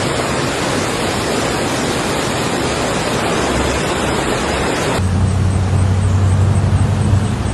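A loud, steady rushing noise like heavy water spray. About five seconds in it cuts abruptly to the low, steady hum of a vehicle's engine and road noise.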